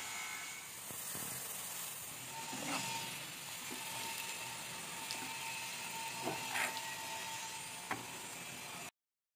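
Sliced onions deep-frying in a metal pan of oil: a steady sizzle, with a few clinks and scrapes of a perforated metal skimmer against the pan. The sound cuts off suddenly near the end.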